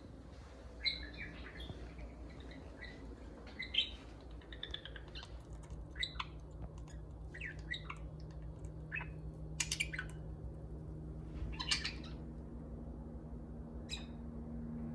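Pet budgerigars chirping and chattering in short, scattered calls, with a few louder, sharper calls about ten and twelve seconds in.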